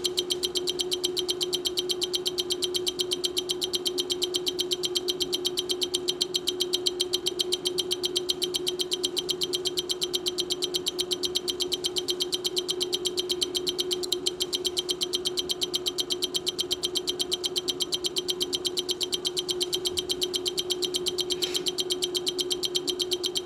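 A rapid, steady train of clicks, about seven a second, over a steady hum.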